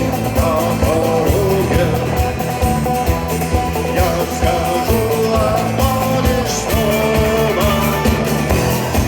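Rock music: a band playing an instrumental passage, a melodic lead line bending in pitch over steady drums and bass.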